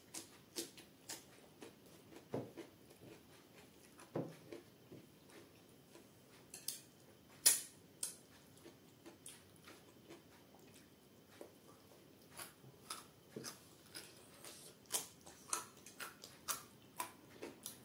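Close-miked eating by hand: wet chewing, lip smacks and finger-licking clicks in an irregular run, with one loud smack about seven and a half seconds in. The clicks come more often near the end as a raw carrot slice is bitten and chewed.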